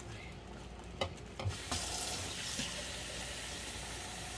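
Kitchen tap turned on about a second and a half in and running steadily, water being drawn for the pan, after a couple of light knocks.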